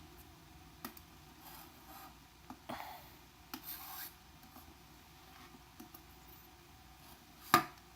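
Kitchen knife blade scraped across the back cover of a Sanyo Katana LX flip phone in a series of short, faint scratching strokes, with one louder short sound near the end.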